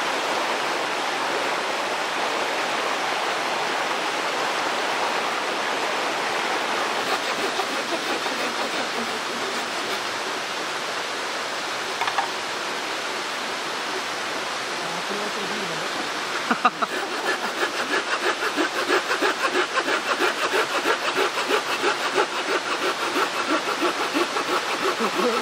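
Mountain stream rushing steadily. From about two-thirds of the way in, a fast, rhythmic scraping sound joins it, after a knock.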